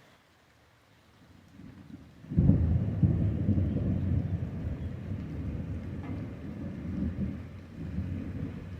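Thunder from a lightning flash: a low rumble builds for about a second, breaks into a loud crack about two and a half seconds in, then rolls on with a few swells, slowly fading.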